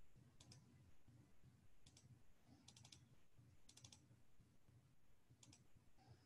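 Near silence with a faint low hum, broken by five short groups of quick clicks from a computer keyboard being tapped.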